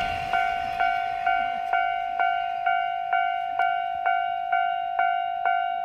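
Japanese level-crossing warning bell ringing its electronic clang about twice a second, each strike sharp and then fading, steady and unchanged throughout.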